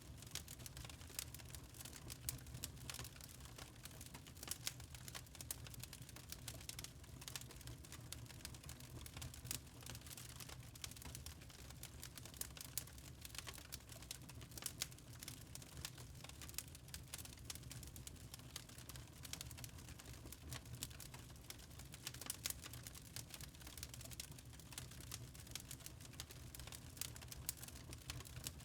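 Fireplace fire crackling: many small irregular snaps and pops over a faint low steady rumble.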